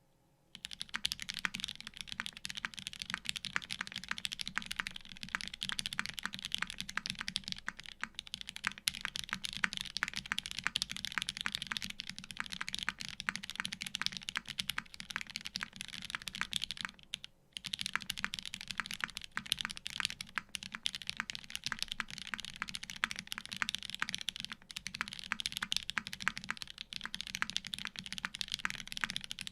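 Continuous dense typing on a custom mechanical keyboard: an LZ CP case with a stainless steel plate, vintage Cherry MX Black linear switches lubed with Krytox 205g0, and GMK WoB keycaps. The keystrokes start about half a second in and pause briefly a little past halfway.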